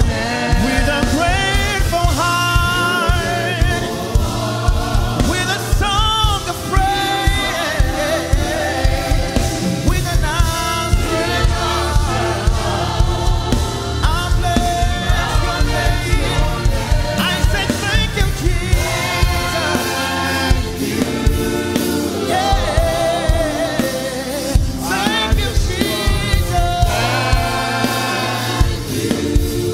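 Gospel worship song sung by a choir and congregation over instrumental backing with a steady beat.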